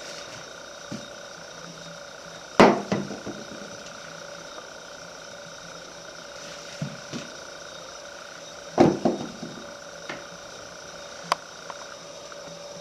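Two loud sharp knocks, each followed by a quick clatter of smaller knocks, with a few lighter taps between and after them, over a steady hum.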